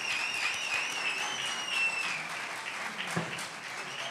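Audience applauding, with a long wavering whistle over the clapping through the first half.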